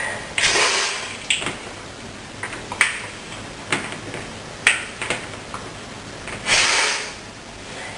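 A person sniffing through a tickling, snuffling nose: short sniffs of about half a second, once near the start and again near the end. In between come a few sharp clicks and taps of small hard objects, about a second apart.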